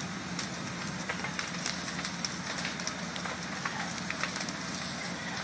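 A burning wooden house crackling, with many sharp pops scattered over a steady rushing noise.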